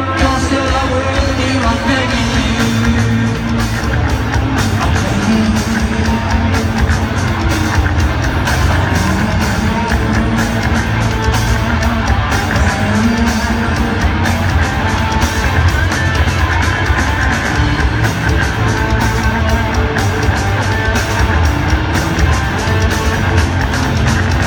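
Live band music with a singer, amplified over a stadium PA and heard from high in the stands. It plays on loudly and without a break, with a steady driving beat.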